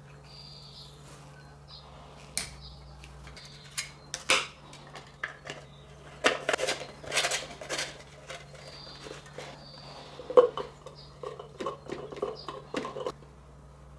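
Hard plastic jar and lid being handled and fitted together: irregular clicks, knocks and scrapes of plastic, in clusters, with one sharp knock about ten seconds in.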